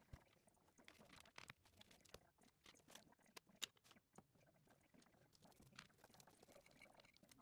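Faint, irregular taps, clicks and rustles of hands and a paintbrush working over a sheet of paper.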